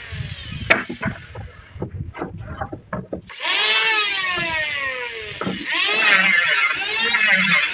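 Handheld electric woodworking power tool cutting wood, its motor pitch dipping under load and recovering with each pass. About a second in it stops for a couple of seconds, leaving a few knocks of wood being handled. It then starts again with a rising whine and goes back to cutting.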